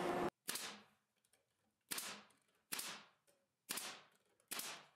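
Pneumatic brad nailer fired five times, sharp shots roughly a second apart, driving brads into a plywood edge lip.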